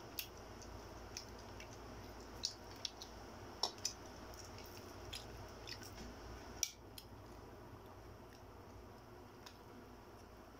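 Eating sounds: scattered small wet clicks and smacks of chewing and handling barbecue skewers, over a steady low hum. The sharpest click comes about two-thirds of the way through, and the clicks thin out after it.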